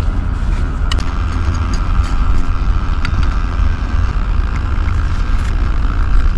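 Wind buffeting the microphone in a steady, heavy low rumble, with a few light clicks.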